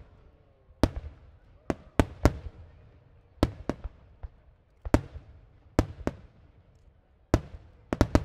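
Aerial fireworks shells bursting: about a dozen sharp bangs at uneven intervals, each followed by a rumbling echo that fades away, with a quick run of three bangs near the end.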